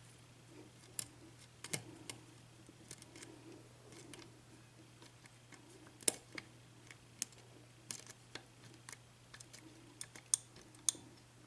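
Faint, irregular metallic clicks and ticks of a lock pick working the pin stacks of an Assa six-pin oval cylinder lock under tension, held in a false set, over a faint steady low hum.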